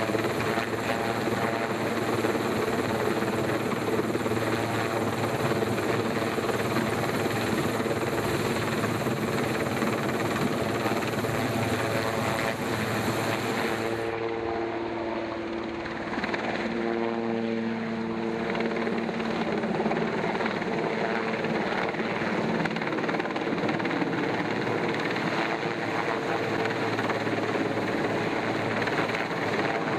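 Helicopter hovering and flying with a chairlift tower section slung beneath it on a long line, its rotor and engine running steadily. About halfway through the sound changes in tone, with the pitch sliding as the helicopter moves.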